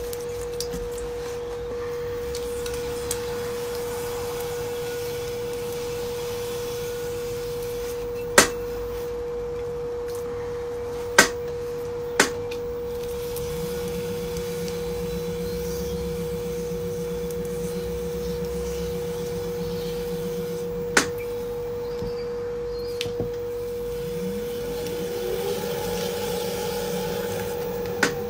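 Electric pottery wheel running with a steady motor whine while wet clay is worked by hand on it. A lower whine comes in for several seconds in the middle, and near the end a tone rises in pitch. A handful of sharp clicks or knocks stand out above the hum.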